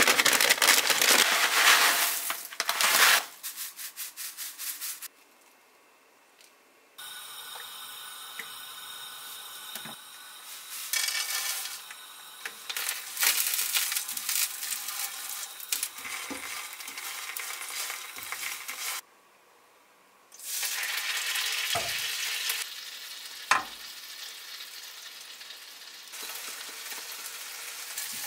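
Dried baby shrimp being stir-fried in a nonstick frying pan, a light crackling sizzle with the spatula scraping and tapping against the pan, broken by two short pauses. It opens with a loud plastic-bag rustle as the frozen bag of shrimp is handled.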